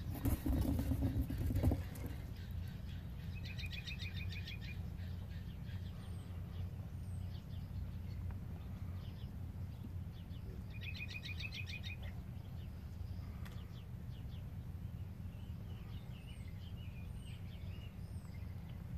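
A small songbird singing a rapid trill twice, about seven seconds apart, with a few faint high chirps between, over a steady low hum. A brief loud noise fills the first two seconds.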